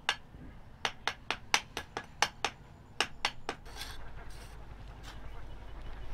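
A bricklayer's trowel tapping on brick and mortar: a quick series of sharp taps, about four or five a second, that stop about three and a half seconds in, after which only a low rumble is left.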